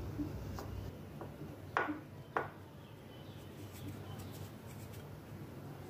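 Soft rubbing and patting of a hand pressing chicken wings into a dish of flour to coat them, with a few light scuffs, the two clearest a little under two seconds in and about half a second later.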